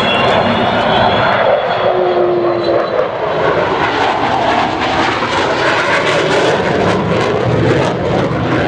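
Vintage propeller aircraft flying past with their piston engines running steadily and loudly.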